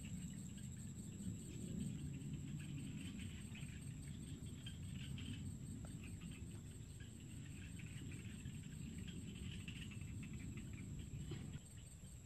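Outdoor ambience: insects chirring over a steady low rumble, which drops away near the end.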